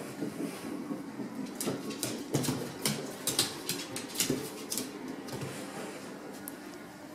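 Irregular light clicks and taps of a Basenji's claws and paws on a laminate wood floor as it pounces and paws at a hard-boiled egg.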